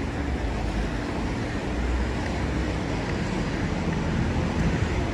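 City street traffic: a steady rumble of passing vehicles with tyre hiss on wet asphalt.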